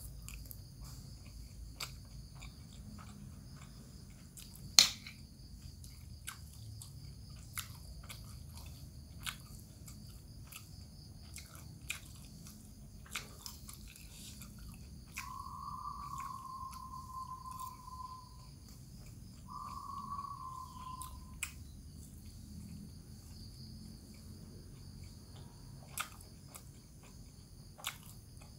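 A person chewing mouthfuls of rice and bamboo-shoot vegetable, with frequent light clicks of a metal spoon against a glass plate and one sharp clink about five seconds in. A steady high hum runs underneath, and two long, slightly falling tones sound around the middle.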